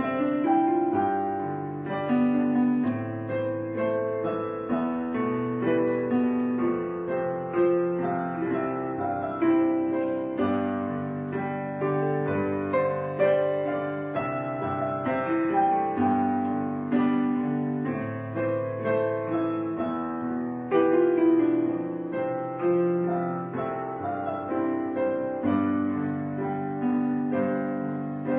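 Piano music: a melody of struck notes over lower bass notes and chords.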